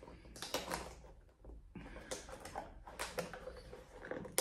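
Faint rustling and a few light knocks and clicks as objects are handled and moved about, ending with one sharper click.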